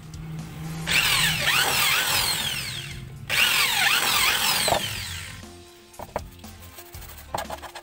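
A small electric drill running in two bursts of about two seconds each, then a few light clicks and taps.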